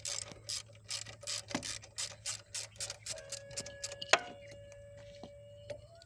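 Socket ratchet wrench clicking as it undoes the motorcycle horn's mounting bolt, a quick even run of about four or five clicks a second that slows and thins out about halfway through, with one sharper click a little after.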